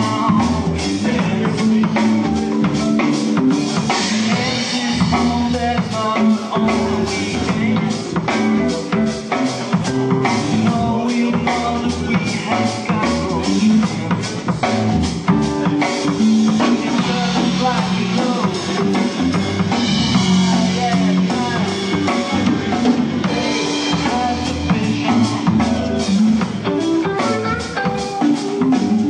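Rock band playing a song: a drum kit keeping a steady beat under electric guitar and bass.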